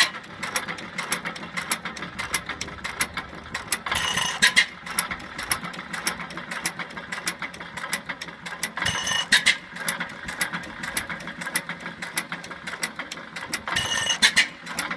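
A 6 hp Master Workman inverted flywheel engine running, with a fast, even clatter of its valve gear and mechanism. A louder burst comes about every five seconds.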